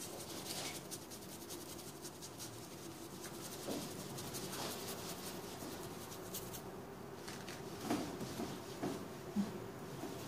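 Stencil brush working paint through a stencil onto a painted wooden panel: soft, repeated scratching and dabbing strokes, with a few light knocks about eight and nine seconds in, over a faint steady hum.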